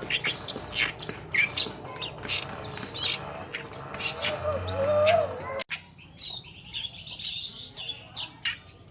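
Oriental reed warbler singing a rapid chattering song of short notes, with a lower warbling phrase before a sudden break a little past halfway. After the break the song resumes more quietly with a buzzy run.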